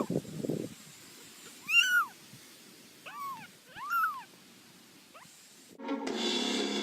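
A cat meowing repeatedly: about four separate meows, each rising and then falling in pitch, with a fainter one after them. Music starts near the end.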